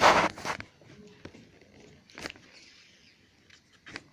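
Brief rustling scrape as a hand moves close by, in the first half second, followed by a few faint scattered clicks and taps.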